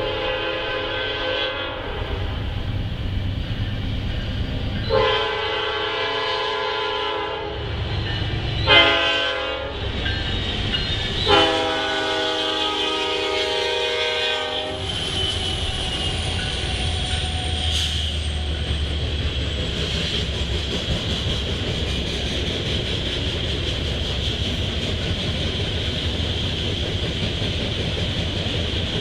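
The Nathan P5 air horn of a lead GE Dash-9 locomotive sounds the grade-crossing signal, four blasts in the pattern long, long, short, long. The locomotives then pass, and coal hopper cars roll by with steady wheel clatter and a low rumble.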